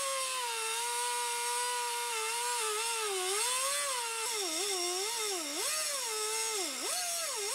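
Handheld cut-off wheel grinding through the steel tube of a shock absorber: a steady high whine over a hiss of cutting. From about halfway through, the pitch keeps dipping and recovering as the wheel bogs under load in the cut.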